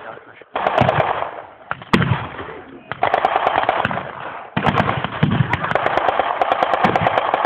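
Automatic gunfire in three bursts of rapid shots, the last the longest, with a single louder crack and a low rumble after it about two seconds in.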